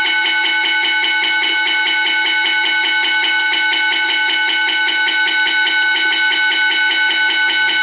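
Assembly bell from a Micro Controls SBELL8012 automatic school bell controller, its traditional-bell sound output played through a speaker: a loud, continuous electric school bell ringing with rapid, even strikes.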